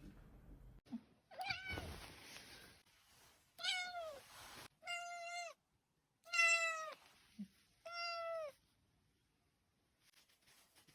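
Domestic cat meowing, about five meows in a row, each dropping in pitch at its end.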